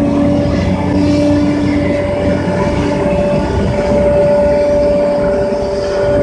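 Hitachi EX1200 hydraulic mining excavator running close up under working load: a loud, steady diesel drone with a held whine on top.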